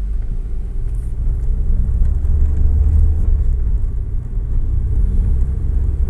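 2014 Nissan Versa's 1.6-litre four-cylinder engine and road noise heard from inside the cabin as the car pulls away from a stop and gathers speed, a steady low rumble.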